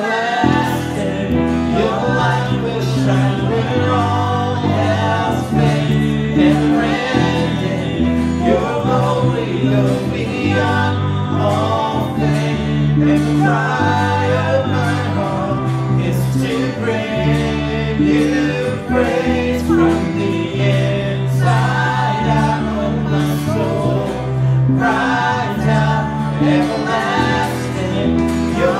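Contemporary worship music: a band playing with voices singing a slow praise song.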